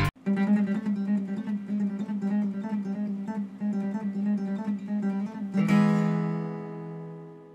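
Acoustic guitar picking a repeating pattern of single notes over a held low note. About five and a half seconds in it strikes a chord that rings and slowly fades out.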